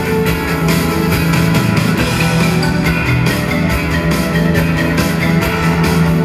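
Live synth-pop rock band playing in an arena, heard through the PA from the audience: keyboards, drums and guitar.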